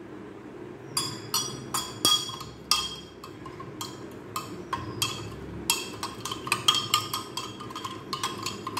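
Steel spoon stirring in a glass tumbler, clinking against the glass again and again at an irregular pace, starting about a second in.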